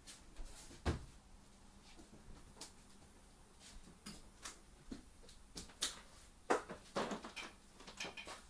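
Scattered knocks, clicks and rustles of household objects being moved and handled during room tidying, with a sharper knock about a second in and a cluster of them near the end.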